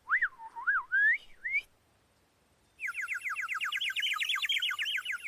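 A cartoon bird's wobbly whistle. It starts with a few gliding whistled notes, breaks off for about a second, then comes back as a fast trill of short falling whistles, about nine a second.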